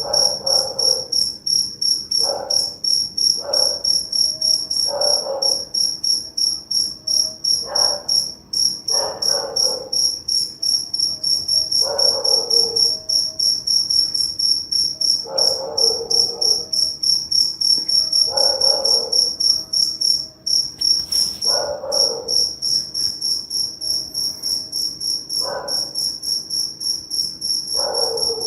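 Crickets chirping in a fast, continuous high-pitched trill, with a dog barking about a dozen times at irregular intervals of a couple of seconds over it.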